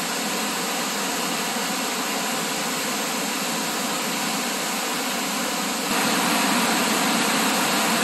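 Whitewater of the York River rushing steadily over rock ledges in a narrow chute, a continuous rush of falling water that gets a little louder about six seconds in.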